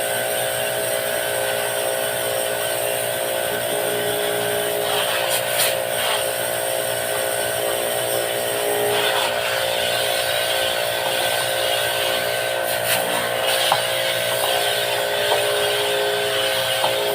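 Small electric motor running steadily with a constant whine and a high hiss, typical of the pump of an electric pressure washer spraying during air-conditioner cleaning. A few short knocks come through about five and thirteen seconds in.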